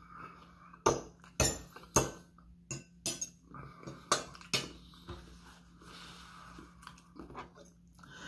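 Metal fork clinking and scraping against a ceramic dinner plate as food is scooped up: about a dozen short, sharp clinks at irregular intervals.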